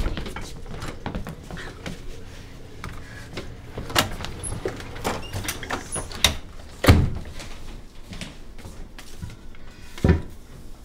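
A house front door being handled and shut, with a few sharp knocks and thumps; the loudest thump comes about seven seconds in, and another comes near the end.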